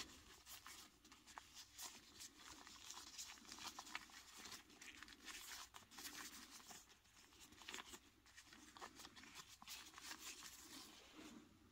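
Faint rustling of a cloth gi being tucked and adjusted by hand on a 1/12-scale action figure, with scattered small clicks from handling the figure.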